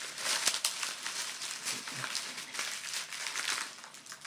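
Wrapping around a bath bomb being crinkled and pulled open by hand, a busy run of close crackles and rustles that eases off near the end.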